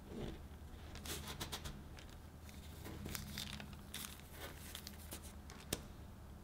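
Parchment paper crinkling and soft pie dough peeling as star shapes are cut with a metal star cookie cutter and lifted away, in scattered crackly bursts. A single sharp click near the end as the metal cutter is set down.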